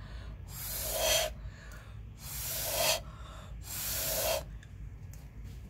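Breath blown hard through a plastic drinking straw in three long puffs. Each puff swells and then cuts off sharply, pushing wet acrylic pour paint down over the base of an upturned wine glass.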